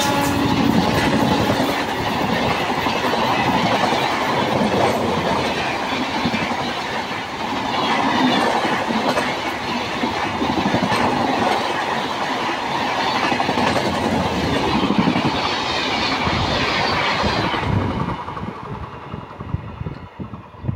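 Rajdhani Express passenger coaches rushing past at speed close by: a loud steady rumble with wheel clatter over the rail joints. Near the end the noise drops away sharply as the last coach passes and the train runs off into the distance.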